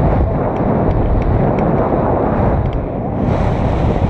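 Airflow of a paraglider flight buffeting the action camera's microphone: a loud, steady low rumbling rush that turns hissier about three seconds in.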